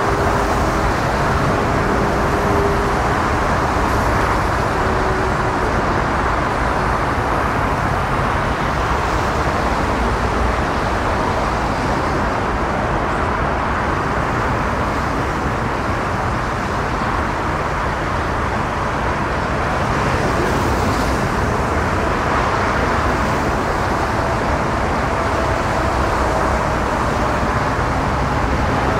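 Airbus A380's four jet engines at low taxi thrust: a steady, even rumble that holds through, with a faint steady whine in the first few seconds.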